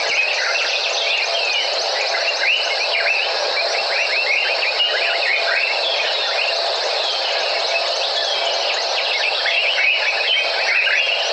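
Dense evening chorus of wild animals in the African bush: many short, quick falling chirps over a steady high-pitched hum.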